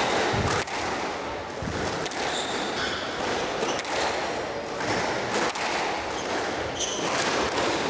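Squash rally: the ball is struck by rackets and hits the court walls in a series of sharp knocks, roughly one every second or so. Short high squeaks come from court shoes on the hardwood floor.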